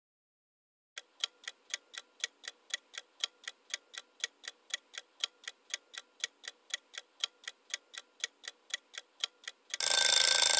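Clock-style ticking sound effect of an answer-time countdown, about four even ticks a second, ending near the end in a louder burst about a second long with a ringing tone, the signal that time is up.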